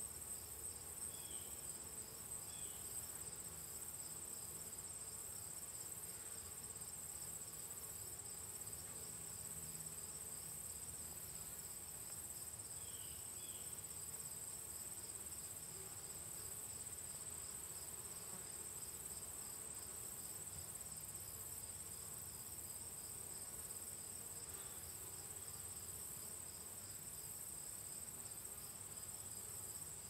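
A steady, high-pitched insect trill with a fast pulsing, over a faint low buzz of honeybees flying around the hive entrance. A few short faint chirps come twice.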